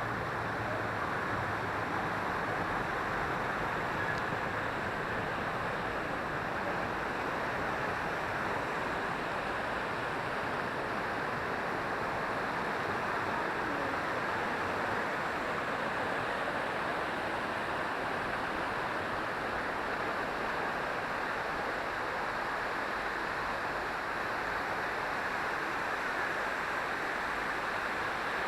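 Sai Yok Noi waterfall: a steady, unbroken rush of falling water.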